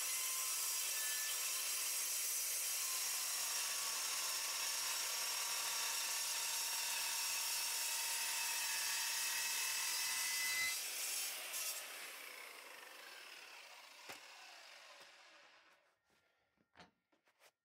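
Evolution Evo 230 HD metal-cutting circular saw cutting through rusty steel angle iron, a steady high-pitched rasp and whine. About ten seconds in the cut ends and the blade winds down over several seconds, followed by a few light knocks near the end.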